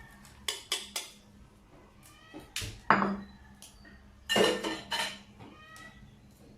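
Kitchen utensils and cookware clinking and clattering: three light clinks in the first second, a louder knock about three seconds in, and a burst of clattering about four seconds in.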